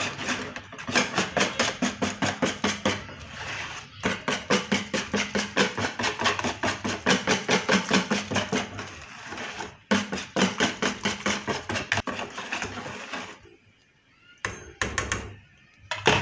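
Wire whisk beating thin rice batter in a bowl, its wires clattering against the side about five times a second with two brief breaks; the strokes stop near the end.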